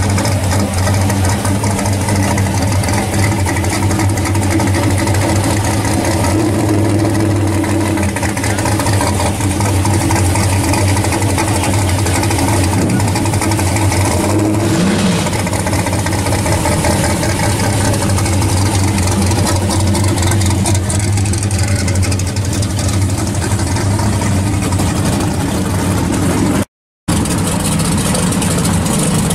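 Chevrolet Camaro SS V8 idling steadily, with one brief rev about halfway through. After a cut near the end, a second V8, in a Plymouth Barracuda with an exposed engine, idles.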